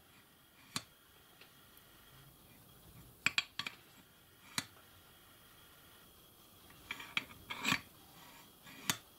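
Light metallic clicks and clinks as an end mill is turned in the clamp of a steel grinding rest and its parts are handled, single clicks and short clusters every second or two.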